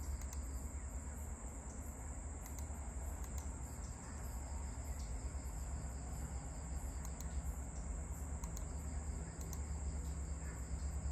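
Crickets trilling steadily, a continuous high-pitched sound over a low, constant hum.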